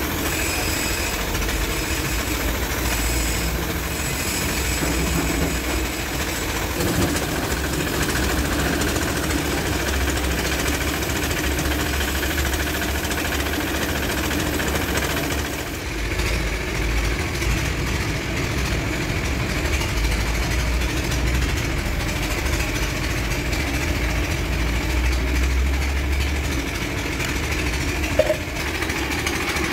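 Air compressor for a paint spray gun running steadily with a constant low rumble. The higher hiss above it thins out about halfway through.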